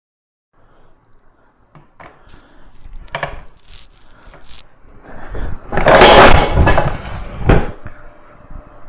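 Irregular knocks and clatter of hard objects being handled, building into a loud scraping rush in the middle, with one sharp knock near the end.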